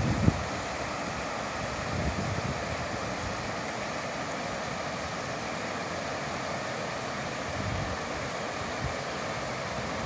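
Shallow, rocky river rushing over stones in white-water riffles: a steady hiss of flowing water. A few brief low rumbles of wind on the microphone come through, one right at the start and another about two seconds in.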